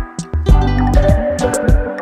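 Upbeat intro music with electric guitar over a steady drum beat.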